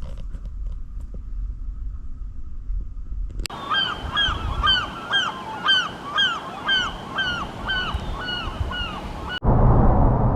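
A bird calling in an even series of about a dozen short, falling, honk-like calls, roughly two a second, starting and stopping abruptly. Before it there is a low rumble. After it comes a sudden louder rush of steady noise.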